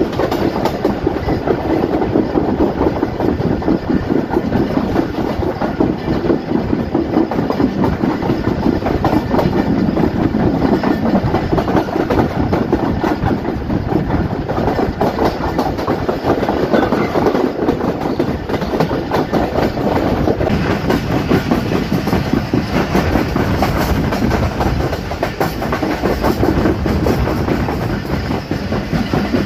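Passenger express train running on the rails, heard from aboard: a steady rumble of wheels on track with clickety-clack over the rail joints.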